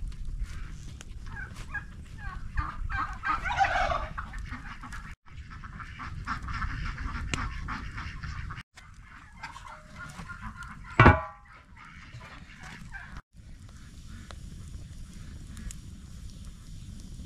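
Farmyard poultry calling in short repeated bursts, over a steady low rumble of wind on the microphone, with one brief, much louder sound about eleven seconds in.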